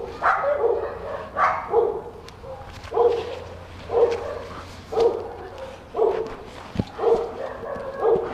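A dog barking steadily, about one bark a second.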